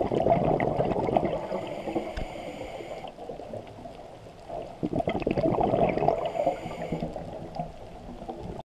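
A scuba diver breathing through a regulator underwater: two bursts of bubbling exhaust about five seconds apart, each followed by a steady hiss of the inhale lasting a second or so.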